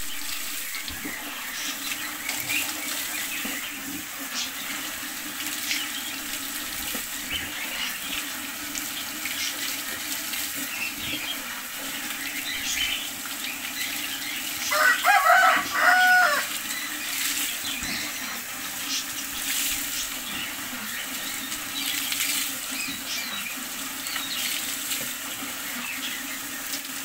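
Water running from a hose onto a dog being bathed, splashing over its coat and onto a wet concrete floor. A loud pitched call breaks in briefly about halfway through.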